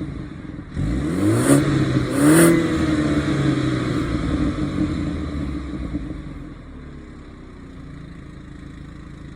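Stock BMW 430i's 2.0-litre turbocharged four-cylinder engine revved twice in quick succession, the second rev higher. The revs then fall slowly and it settles into a quieter, steady idle.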